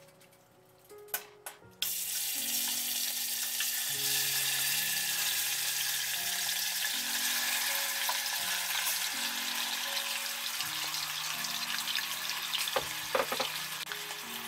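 Mutton pieces frying in hot oil in an aluminium pressure cooker: after a few clicks, a loud sizzle starts suddenly about two seconds in and keeps going, with a few more clicks near the end.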